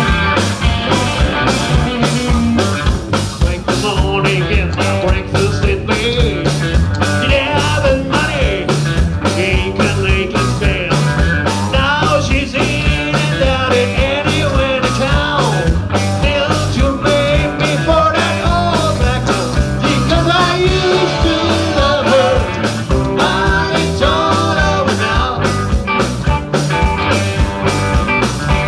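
Live rock band playing a southern country rock number: drums keep a steady beat under electric guitars and a low bass line.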